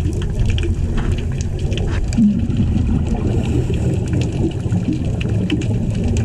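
Underwater sound picked up through a camera housing: a steady low rumble of moving water with many scattered sharp clicks and crackles, and a brief low tone about two seconds in.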